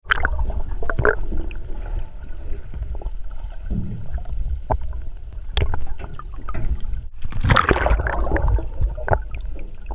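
Sea water sloshing and gurgling over a steady low rumble, with scattered splashes and a louder rush of water about seven and a half seconds in.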